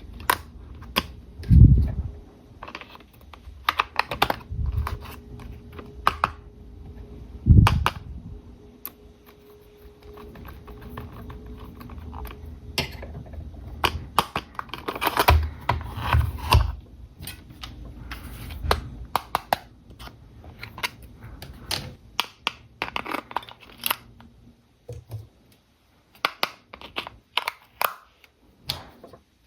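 Toy packaging being handled during an unboxing: many quick plastic and cardboard clicks, with rustling, and two heavier thumps as the box or toy is set down.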